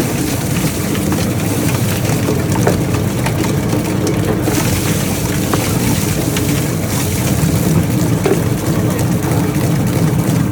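Poultry feather-plucking machine running: a steady mechanical rumble with constant small knocks and rattles.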